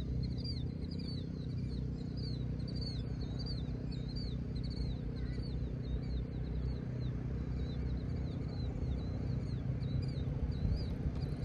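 A bird calling a quick run of short rising-and-falling chirps, about three a second, that thins out midway and picks up again near the end. It is heard over a steady low rumble of wind.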